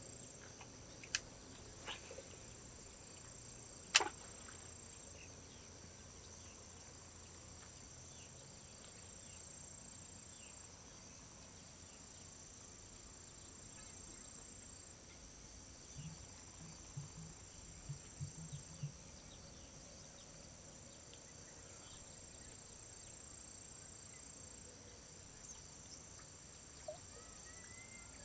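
Steady high-pitched insect chorus of evening crickets, with a single sharp click about four seconds in and a few faint knocks later on.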